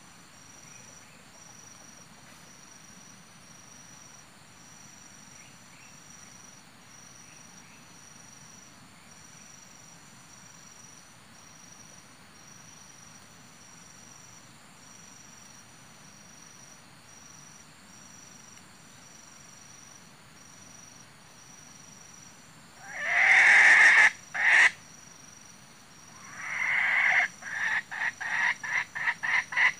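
Steady high insect trilling with a regular pulse. About 23 seconds in a wild junglefowl crows loudly. A second crow comes about 27 seconds in and runs straight into quick, evenly spaced clucks, two or three a second.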